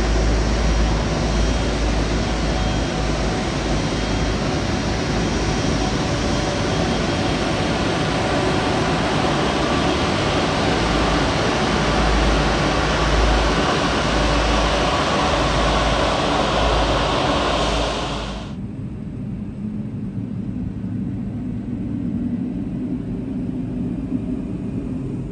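Jet engines of a taxiing Boeing 777 running at low thrust close by, a loud, steady rush. About 18 seconds in it cuts abruptly to a quieter, lower engine hum from another taxiing Boeing 777.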